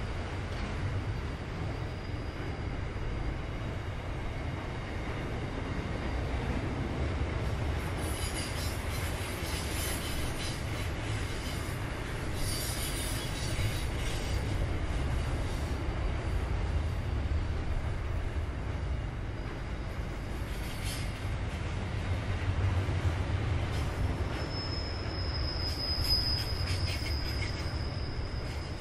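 Container freight train wagons rolling past with a steady low rumble of wheels on rail. Short bursts of metallic screech and clatter come through in the middle. A high, steady wheel squeal sets in strongly in the last few seconds.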